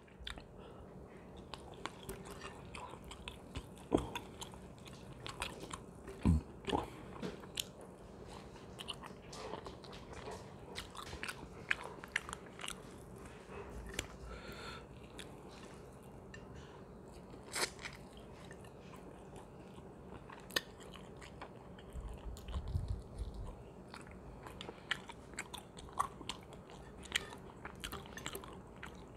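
A person chewing and eating chicken biryani by hand: soft wet chewing with small crunches and smacks, many short clicks scattered throughout and a few louder knocks.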